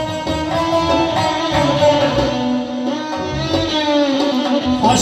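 Instrumental break with no singing: a long-necked plucked lute carries the melody over doira frame drums and keyboard in a Uzbek folk ensemble.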